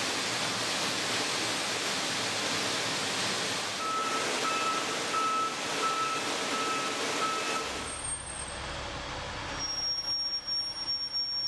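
Vehicle reversing alarm beeping about six times, roughly one and a half beeps a second, over a loud steady rushing noise in a ship's steel vehicle deck. About eight seconds in, the rushing stops and a quieter low hum with a thin high whine takes over.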